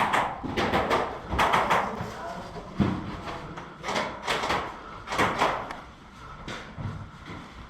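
A run of irregular sharp knocks and clicks, several a second at first and sparser later, with faint indistinct voices.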